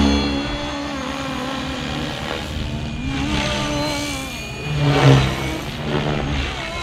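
FLY WING FW450 V2 electric RC helicopter in flight on a 3S LiPo: the whine of its motor and the whir of its rotor blades, rising and falling in pitch as it manoeuvres. It is loudest at the start, as it passes close, and swells again about five seconds in.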